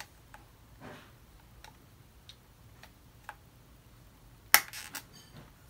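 Small plastic clicks and taps as the battery cover is fitted back onto the hollow plastic tail of a Squeakee balloon-dinosaur toy, with one sharp, loud snap about four and a half seconds in, followed by a few lighter clicks.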